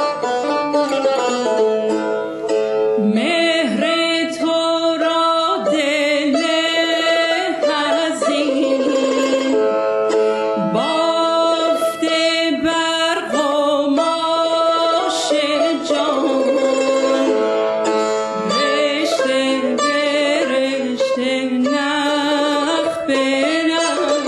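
A woman singing Persian classical vocal music with wavering, ornamented lines, coming in about three seconds in, over a plucked tar accompaniment.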